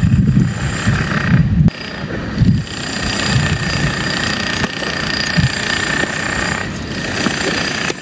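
Strong wind buffets the microphone in low, rumbling gusts over the first couple of seconds. Beneath it runs a steady machine-like noise with thin high whining tones. About halfway through comes the sharp pop of a tennis racket hitting the ball on a serve.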